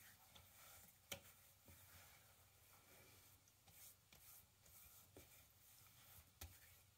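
Near silence: faint rubbing of hands on the face while aftershave splash is applied, with two soft clicks, one about a second in and one near the end.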